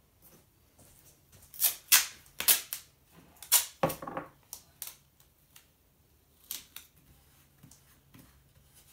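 Blue painter's tape pulled off its roll and torn, a series of sharp crackling rips, loudest between about one and a half and five seconds in, with a dull knock about four seconds in and a last small rip later.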